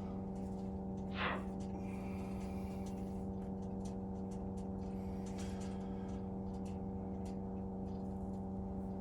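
A steady droning hum made of several held tones, with a short swish about a second in and faint clicks of handling.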